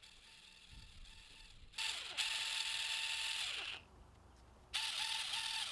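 A small motorized pumpkin-carving saw buzzing in two runs: about two seconds from near 2 s in, then again from near 5 s, with a high, slightly warbling whine, used to cut into a sliding door.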